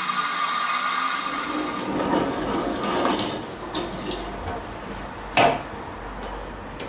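Workshop tool noise: a power tool's steady whine fades out over the first couple of seconds, giving way to rubbing and scraping on wood or metal, with one sharp knock about five seconds in.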